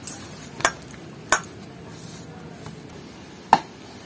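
Hand mixing mashed boiled potato and cornflour in a stainless steel bowl, with a few sharp clinks as the hand knocks against the bowl, the loudest about three and a half seconds in.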